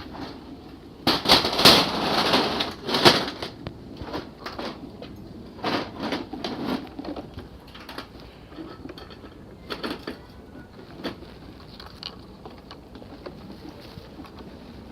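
Clattering and knocks, loudest in a dense cluster in the first few seconds, then scattered softer knocks.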